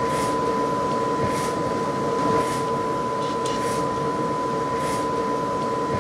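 Powder-bed 3D printer running: a steady mechanical hum with a constant high whine and a soft swish about once a second.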